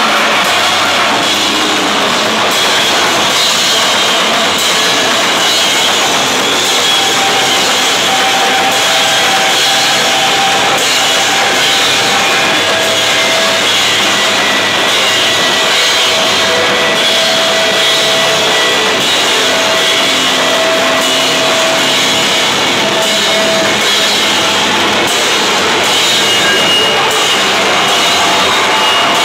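Rock band playing live at full volume: electric bass, guitar and drum kit with cymbals, forming a dense, unbroken wall of sound with held notes ringing through it.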